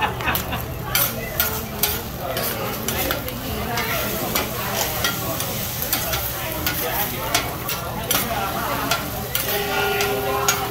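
A metal spatula scraping and clacking quickly and irregularly on a steel teppanyaki griddle while fried rice and egg sizzle on the hot plate.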